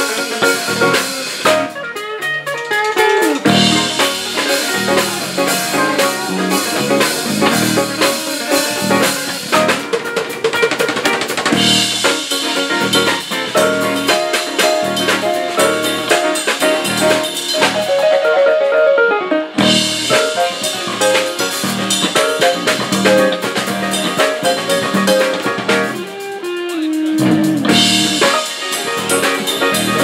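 Live band playing an instrumental passage: drum kit keeping a steady beat under electric bass, electric and acoustic guitars and keyboard, with a pitch slide near the end.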